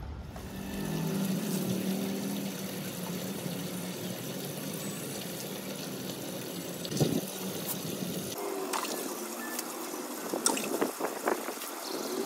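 Water poured out of a metal cooking pot, splashing onto a concrete roof. About eight seconds in the sound changes to sharper, separate splashes and slaps.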